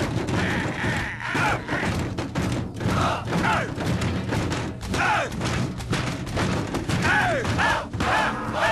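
Many fists pounding on the wooden shields of a Roman tortoise formation, a dense run of thuds, while men shout and whoop over them.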